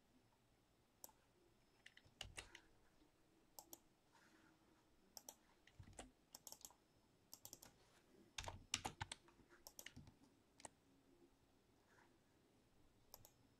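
Faint, scattered clicks of a computer keyboard and mouse, a few keystrokes at a time, with a busier run of clicks a little past the middle.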